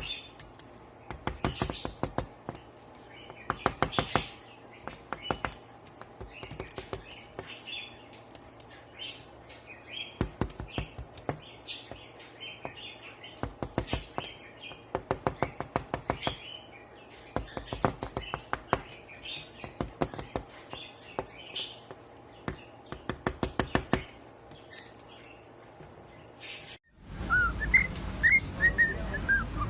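Pet parrot chirping, with runs of rapid sharp clicks between the short calls. Near the end it switches to a noisier background with quick rising chirps.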